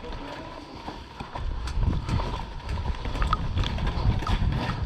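Hurried footsteps on a hard floor with gear knocking, picked up by a body-worn camera, growing louder from about a second and a half in.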